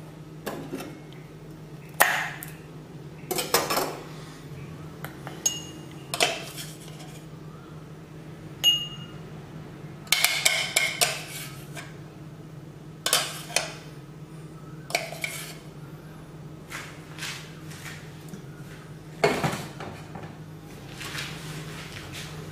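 Ceramic bowls and utensils being set down and knocked against a wooden cutting board: about a dozen scattered sharp knocks and clinks, a few ringing briefly like struck crockery. A steady low hum runs underneath.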